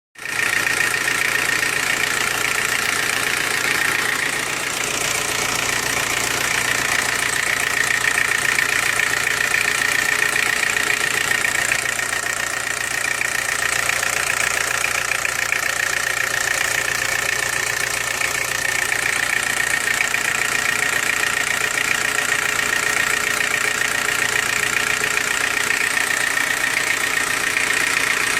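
Car engine idling steadily, with a constant whine and hiss over the running.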